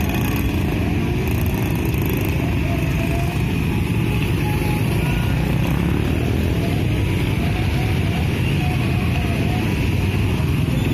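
Heavy traffic of small motorcycles, with a few cars mixed in, passing steadily at close range, their engines running in a continuous dense drone.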